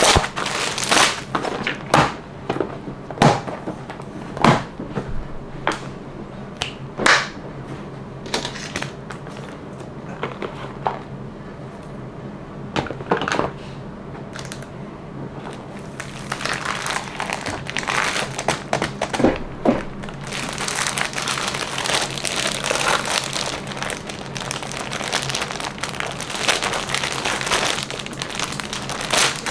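Unboxing packaging being handled. For about the first half there are scattered sharp clicks and taps. After that comes a steady crinkling of plastic wrapping.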